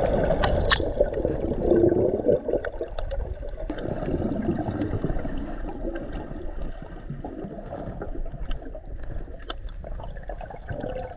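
Water moving and bubbling around an action camera held underwater while snorkelling, with scattered small clicks. It is louder in the first couple of seconds, then eases off.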